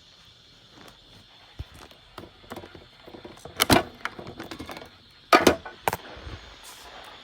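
Scattered clicks and knocks, the two loudest about three and a half and five and a half seconds in, over a faint steady hiss.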